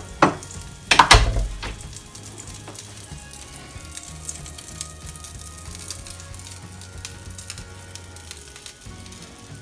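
Hot fat sizzling steadily in a frying pan on a gas stove, ready for eggs. A few sharp knocks come near the start, the loudest about a second in.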